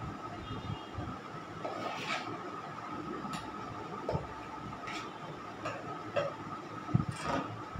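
Scattered light clicks and taps of small food-colour bottles and a bowl being handled, the loudest knock near the end, over a steady faint hum.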